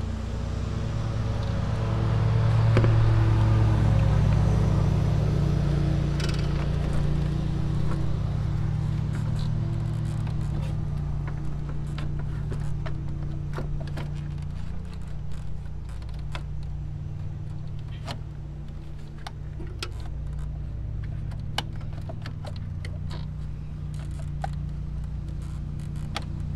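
A lawnmower engine drones steadily in the background, swelling a few seconds in and then slowly easing off. Scattered light clicks and knocks come from the plastic radiator fan shroud as it is worked down into the engine bay.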